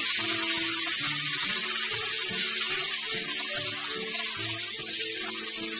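Tomato purée sizzling in hot oil as it is poured into a kadai of frying spiced potatoes: a steady, loud hiss.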